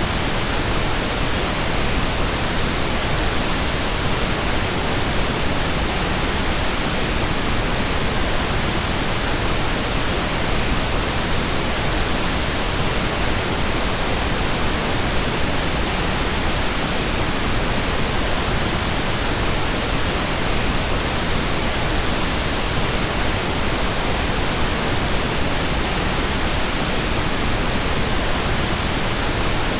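Steady pink noise: an even, unchanging hiss spread across all frequencies.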